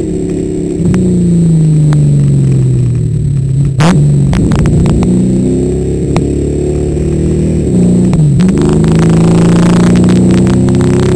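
The 1978 Dodge Challenger race car's engine, heard from inside the car, running hard up a winding road: the revs sag slowly for a few seconds, dip and pick up sharply about four seconds in and again about eight seconds in, then climb steadily as it accelerates. A sharp knock about four seconds in.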